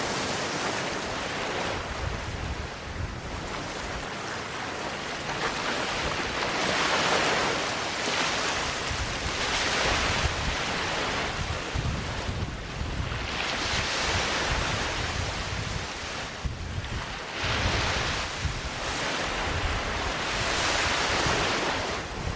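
Waves breaking and washing up on a sandy beach, each wash swelling and fading every few seconds. Wind buffets the microphone with a low rumble underneath.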